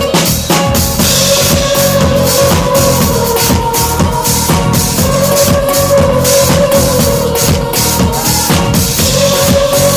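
Live band playing an instrumental passage: a steady drum kit beat with bass drum and snare under long held melodic notes.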